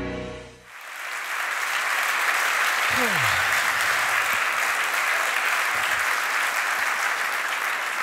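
Large audience applauding steadily. Intro music cuts off in the first second as the applause comes in, and a brief falling call rises out of the crowd about three seconds in.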